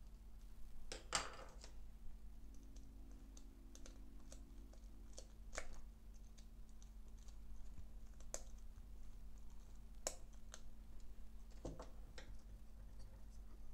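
Irregular light clicks and scrapes of a small screwdriver turning the screws of a controller board's screw terminal block while wires are clamped in, over a low steady hum.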